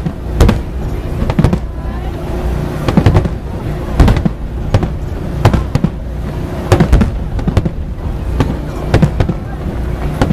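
Fireworks display: aerial shells bursting in quick, irregular succession, sharp bangs several to a second at times, over a steady low rumble.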